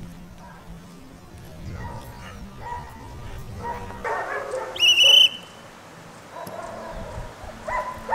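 German Shepherd puppy barking and yipping repeatedly in short calls, busiest around four seconds in. A short, loud, high-pitched whistle-like tone comes about five seconds in.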